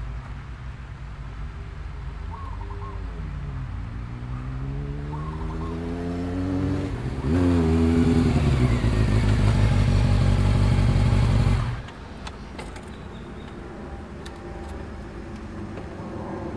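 Motorcycle engine approaching and accelerating, its pitch climbing, dropping at a gear change, then loud and steady as it passes close. It cuts off suddenly about two-thirds of the way through.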